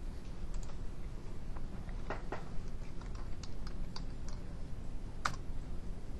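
Computer keyboard being typed on: an irregular run of separate key clicks, with one louder click about five seconds in, over a low steady room hum.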